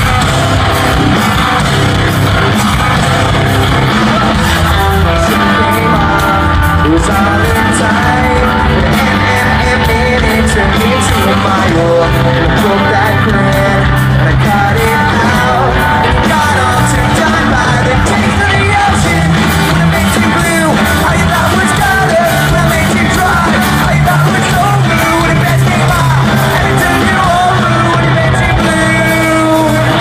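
A post-hardcore band playing live in a large hall: electric guitars, bass and drums with the singer singing and yelling into the microphone. Loud and dense throughout.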